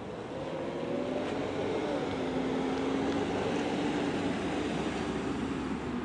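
Diesel freight locomotive's air horn sounding one long chord of several held notes as the train approaches, over the rumble of the engine and train.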